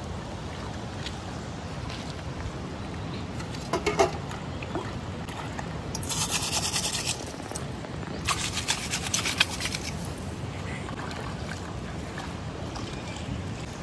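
Shallow river trickling over stones while a metal plate is rinsed and scrubbed in the water: a brief clatter about four seconds in, then two bursts of splashing and scrubbing, about six and eight seconds in.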